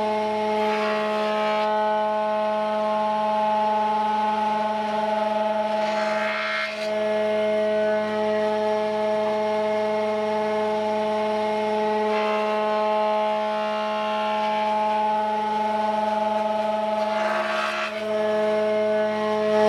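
A Warrior thickness planer running with a steady, many-pitched whine and hum. Four times, about 1, 6, 13 and 17 seconds in, a louder rush of cutting noise rises as the cutter head planes a glued-up panel of wood strips.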